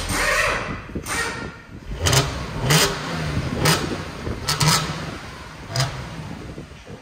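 Audi S5 Sportback's supercharged 3.0 V6, cold and just started, flaring and then blipped in several short revs, heard through a factory facelift exhaust fitted with a Milltek X-pipe.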